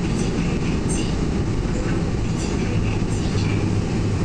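Seoul Subway Line 2 train running on elevated track, heard from inside the car: a steady rumble of wheels on rail, with a low hum coming up about three seconds in.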